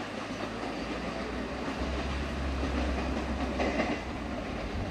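Container freight train running away along the track, its wagon wheels rolling over the rails. A low rumble comes in about two seconds in.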